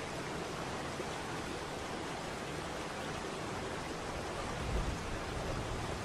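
Waterfall rushing: a steady, even roar of falling water, with a brief low rumble swelling about five seconds in.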